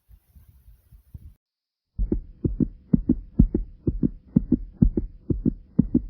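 A human heartbeat pounding hard: rapid paired thumps. They are faint at first, break off a little over a second in, and return loud about two seconds in.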